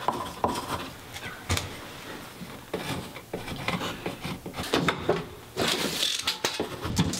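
Scattered light knocks, clicks and rubbing of a tape measure and pencil being worked against wooden studs and cement board.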